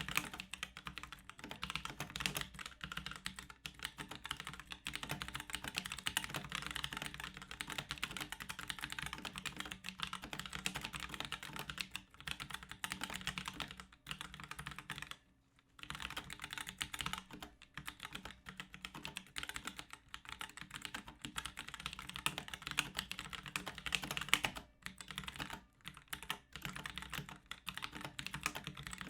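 Continuous fast typing on a Drevo Tyrfing V2 tenkeyless mechanical keyboard with Outemu Brown tactile switches, a dense stream of key clicks and clacks. The typing stops briefly about fifteen seconds in and again for moments near twenty-five seconds.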